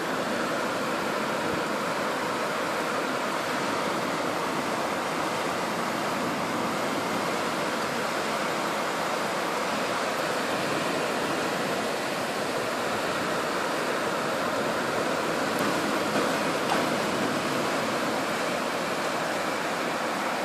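Torrential rain pouring down, a steady, even hiss.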